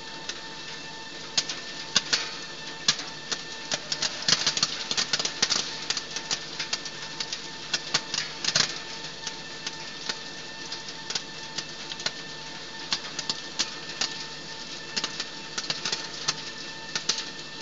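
Dried-chili color sorter running: a steady machine hum with a thin high whine, under many irregular sharp clicks and ticks from its sorting and ejection section, densest about four to six seconds in.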